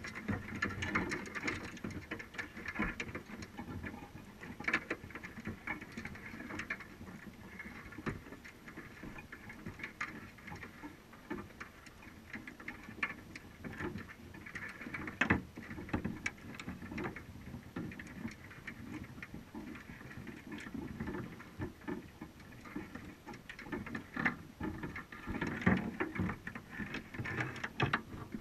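Crabs clicking and scratching as they crawl over the wire mesh of a crab trap and its bait cage, heard underwater through a waterproof camera housing: a steady run of irregular sharp ticks and rasps.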